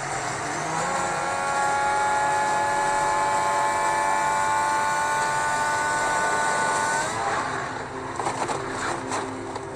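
Onboard sound of a Mercedes-powered Williams Formula 1 car's V6 turbo-hybrid engine at full throttle, holding a steady high note. About seven seconds in the note breaks off as the car loses control on the wet track, followed by rough scraping and a couple of sharp bangs as it crashes.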